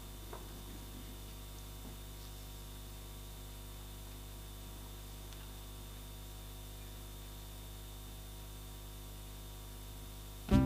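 Steady electrical hum and hiss from the concert sound system during a quiet pause. Right at the end the music starts abruptly and loudly.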